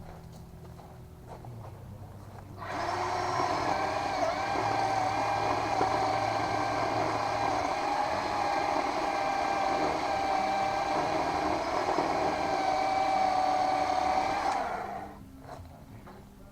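Worx WG322 20V cordless electric chainsaw running: its motor and chain start suddenly a little under 3 s in with a steady high whine, hold for about twelve seconds, then wind down and stop near the end.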